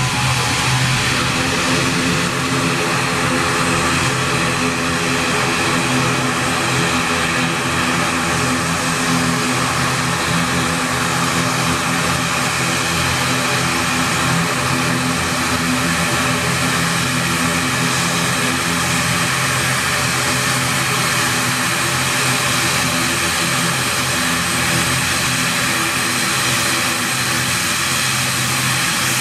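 Twin turboprop engines of an ATR airliner (Pratt & Whitney PW127) running at taxi power as it rolls and turns: a steady drone with a low propeller hum and a hissing whine above it.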